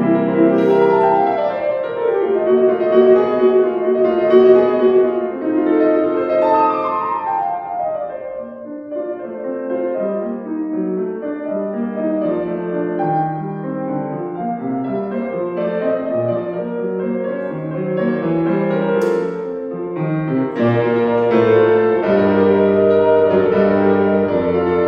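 Solo piano playing a classical piece. The music thins to a softer passage in the middle and grows fuller and louder again near the end.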